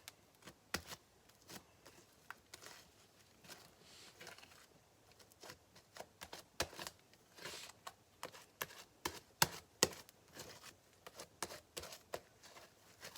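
Fluffy slime made with glue and shaving foam being kneaded and stretched by hand: irregular small clicks and pops as the slime is pulled and folded.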